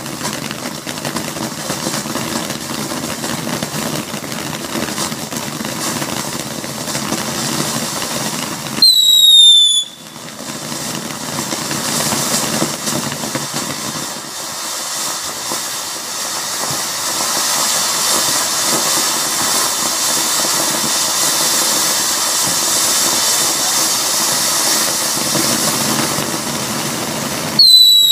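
Legend Fireworks 'Passion and Fire' fountain spraying sparks with a steady hiss. Twice, about nine seconds in and again near the end, a loud, shrill whistle about a second long cuts in, falling slightly in pitch.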